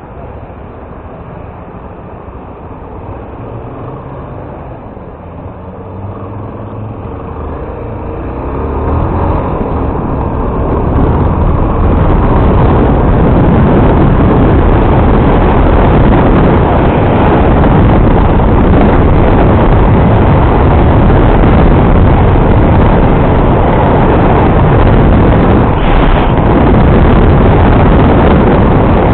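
A motorcycle riding on the road, its engine and heavy wind rush over the microphone building up over the first dozen seconds as it gathers speed, then holding loud and steady.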